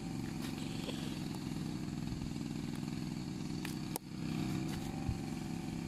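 A small engine running steadily at low speed, with a brief break about four seconds in.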